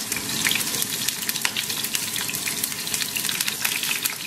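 Oil sizzling in a frying pan over low heat as pieces of spring onion fry in it, with a steady hiss and many small crackles and pops.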